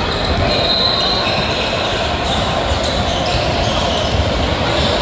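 Indoor basketball game noise: a steady din of crowd and players, with short high sneaker squeaks on the court scattered through it.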